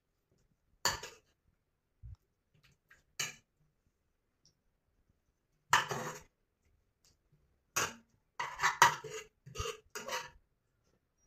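A metal spoon scraping and clinking against a metal bowl as pieces of food are scooped out, with a few separate clinks and then several in quick succession near the end.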